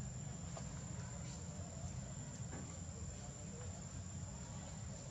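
Quiet outdoor background: a steady low rumble with a thin, steady high-pitched whine and a few faint clicks.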